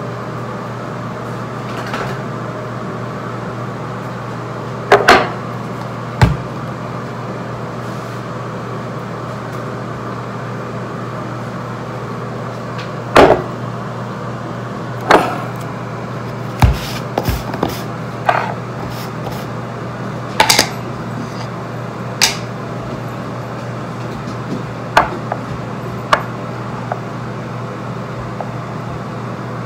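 Jars, a bottle and a small glass dish handled and set down on a bathroom countertop: about a dozen sharp knocks and clicks at uneven intervals, over a steady low hum.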